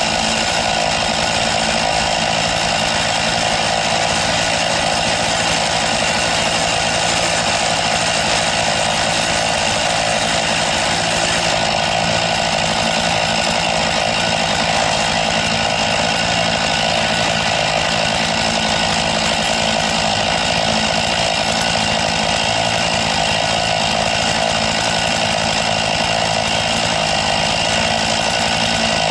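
Chainsaw on an Alaskan chainsaw mill running steadily under load as it rips lengthwise through a cedar log, the engine holding an even pitch throughout.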